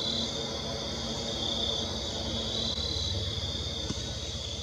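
Chorus of late-summer night insects trilling steadily at a high pitch, swelling and easing in stretches of about a second.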